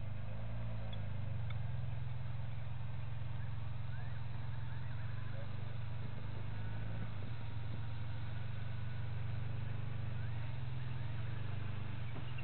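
Low, steady engine hum of an idling safari vehicle, its pitch shifting briefly near the start and again near the end. Faint high chirps sound over it now and then.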